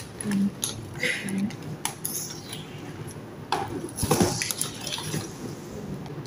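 A paper gift bag rustling and small items clinking as gifts are handled and taken out of it, in short irregular bursts, the loudest about four seconds in.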